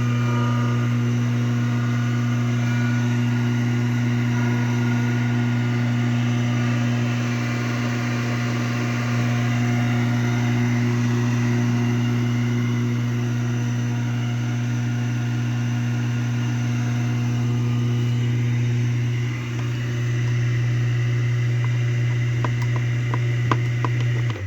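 Kawamoto N3-206SHN well pump's electric motor running with a loud, steady hum, the abnormal noise it makes whenever the motor runs. A few clicks near the end, then it stops abruptly.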